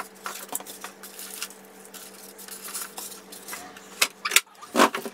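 Handling noise from a sewing machine being shifted and turned on a wooden table: scattered light clicks and knocks, with a few louder knocks about four seconds in and again near the end.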